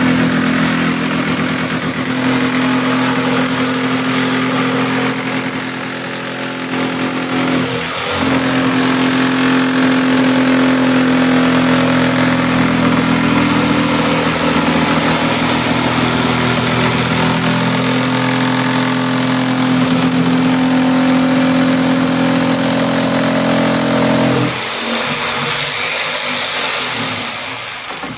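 110-volt jigsaw running and cutting, a steady loud motor whine with a brief dip about 8 seconds in, stopping a few seconds before the end and then dying away. The heavy blade cuts cleanly.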